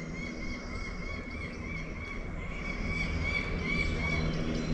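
Birds singing, with short chirping notes repeated several times a second, over a low steady hum.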